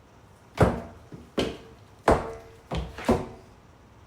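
Footsteps in shoes on a hard floor: five sharp steps at an even walking pace, the fourth lighter than the others.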